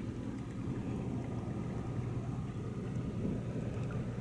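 Steady low drone of a Ro-Ro passenger ferry's engines heard across the water, an even hum with no change in pitch.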